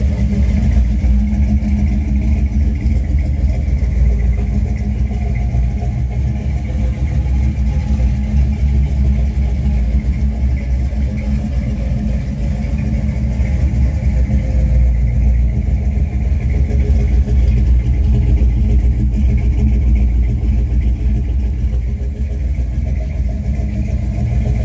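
1959 Chevrolet Impala's big-block V8 idling steadily through its exhaust, a deep even rumble with no revving.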